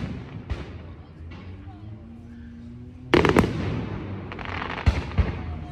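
Fireworks going off: a couple of single bangs, then a burst of several loud bangs a little past the middle followed by crackling, and two more sharp bangs near the end.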